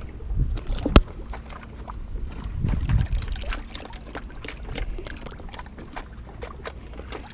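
Seawater sloshing and splashing around a spinning reel as it is dunked over the side of a boat to test its seals, with a sharp knock about a second in.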